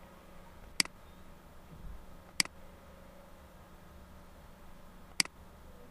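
Computer mouse clicking three times, with sharp single clicks spread a second or more apart, over faint room hum.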